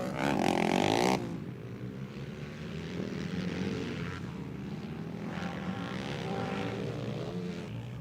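ATV quad racing engines running hard. A loud engine pass cuts off about a second in. After that, more distant quads rev up and down, rising and falling in pitch.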